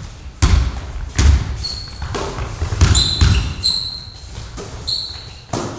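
Basketball bouncing on a gym floor in several heavy thuds, with sneakers squeaking in four or five short, high chirps as players cut and stop, echoing in a large sports hall.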